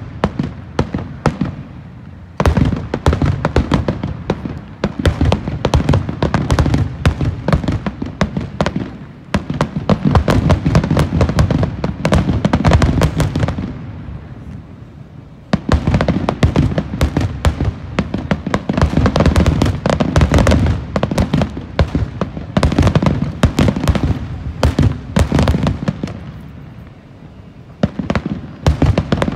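Aerial fireworks display: dense volleys of shell bursts and crackle, many sharp bangs in quick succession with deep booms underneath. The barrage eases off briefly four times before picking up again.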